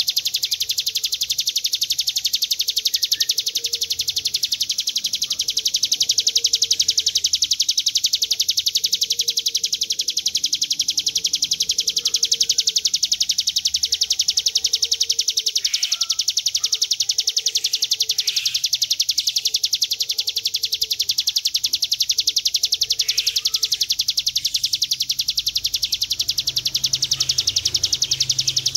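Ciblek gunung, a prinia, singing one long unbroken high trill, rapid and even, held without a pause ("ngebren panjang").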